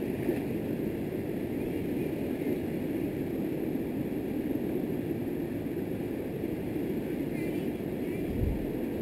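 Steady rushing of river water flowing over granite rocks, an even low rush with no breaks.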